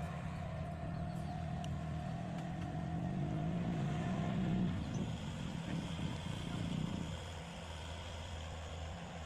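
Excavator engine running with a steady whine above it, growing louder under load about three to five seconds in, then easing back about seven seconds in.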